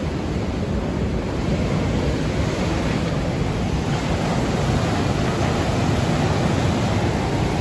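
Ocean surf breaking and washing up over a cobble beach as a steady rushing noise, growing a little louder after the first second or so.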